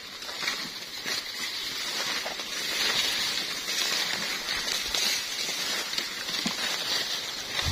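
Dry maize leaves and stalks rustling and crackling as a person pushes through a corn field, a plastic basket brushing against the plants, with small snaps scattered through it.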